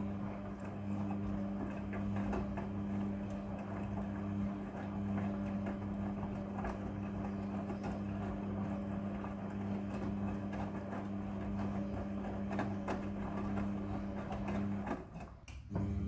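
Midea front-loading washing machine on its wash cycle: a steady motor hum with wet clothes tumbling and dropping inside the drum. The sound dips briefly near the end.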